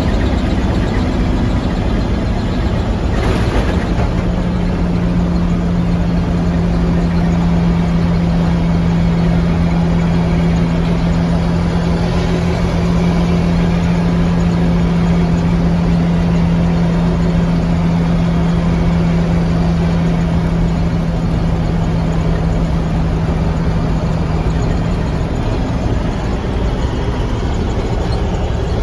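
Mack B-61 truck's diesel engine running under way, with a steady drone holding one pitch for about twenty seconds. A brief rasp comes about three seconds in, before the drone settles.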